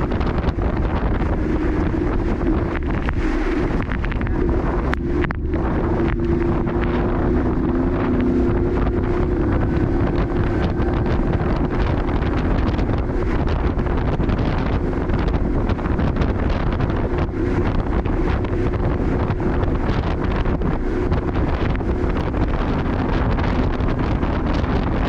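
Wind buffeting the microphone over the steady drone of a small boat's engine running at speed, with the hull pushing through choppy water.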